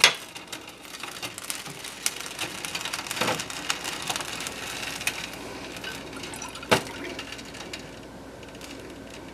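Butter melting and crackling in a stainless steel saucepan as a silicone whisk stirs it. Three sharper knocks against the pan stand out: a loud one at the very start, one about three seconds in and one near seven seconds, after which the crackle dies down to a soft hiss.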